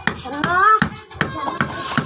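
Music with a steady percussion beat of about two and a half strokes a second. A voice slides upward in pitch about half a second in, and a thinner held tone follows near the end.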